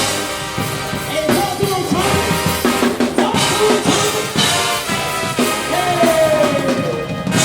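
Marching band playing: sustained horn notes over a drum kit and percussion, with a long falling note near the end.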